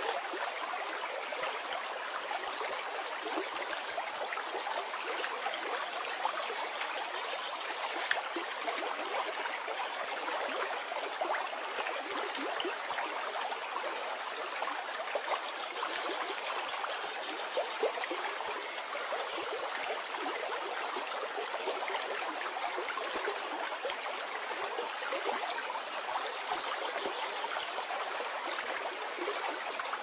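Mountain stream rushing over rocks in small white-water rapids: a steady, even rush of water with many small splashes in it.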